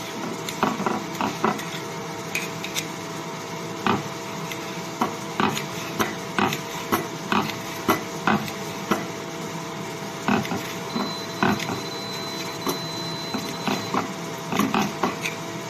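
Knife chopping vegetables on a cutting board in irregular strokes, roughly one or two a second, over a steady background hum.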